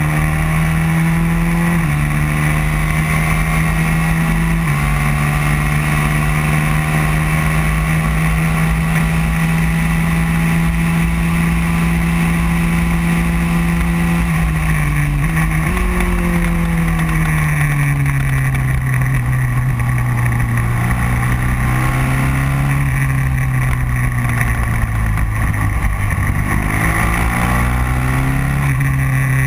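Racing kart engine heard from on board, running hard at a steady high pitch for long stretches, with a few brief dips. From about the middle on, the pitch falls and climbs again several times as the kart slows for corners and accelerates out of them.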